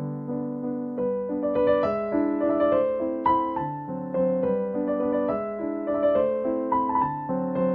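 Background piano music: a gentle melody of stepping notes over held chords.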